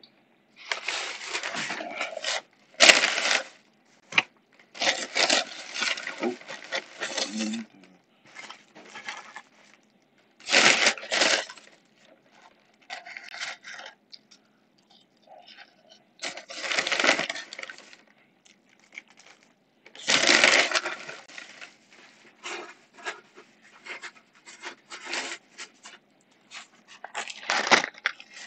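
Irregular rustling and scraping noises, in bursts of a second or so with short quiet gaps between them.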